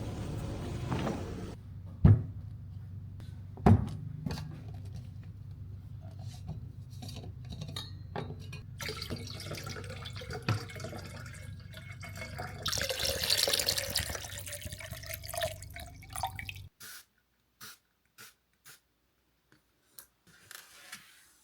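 Two sharp clinks, then water running into a vessel with a pitch that rises as it fills, ending suddenly; a few faint clicks follow.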